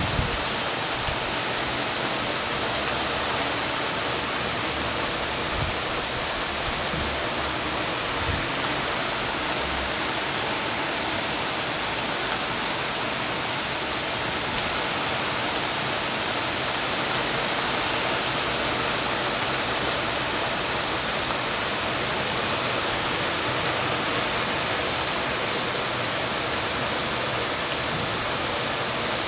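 Heavy thunderstorm downpour: rain falling steadily on tiled roofs and a flooded paved yard, a continuous even hiss.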